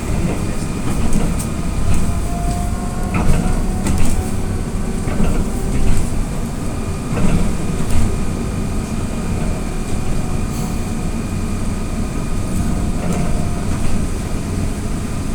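Cabin noise of an AKSM-321 trolleybus under way: a steady low rumble with scattered rattles and knocks from the body and fittings.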